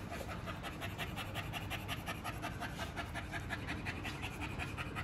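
An American bully dog panting rapidly and evenly, short quick breaths in a steady rhythm of several a second.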